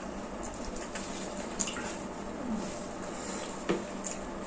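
Faint eating sounds at a meal: soft chewing and a few small clicks of food and utensils over a steady background hiss.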